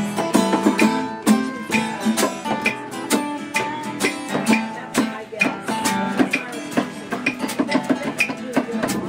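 Two acoustic guitars strummed and picked in a live acoustic band performance, with a few held notes over them.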